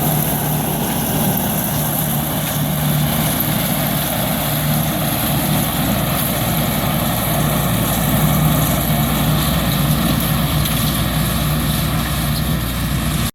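ATV engine running steadily during a trail ride.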